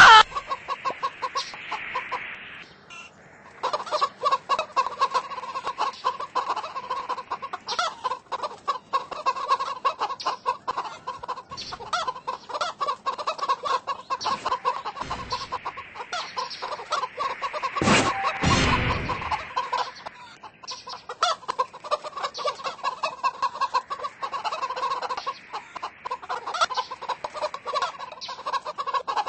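Domestic hens clucking in quick, repeated clucks, with a short louder, noisier burst about eighteen seconds in.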